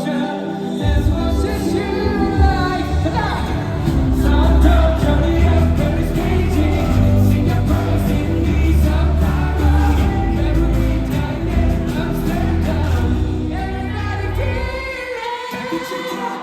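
Live pop concert music heard through the venue's sound system: a singer's voice over a band track. Heavy bass comes in about a second in and drops out near the end.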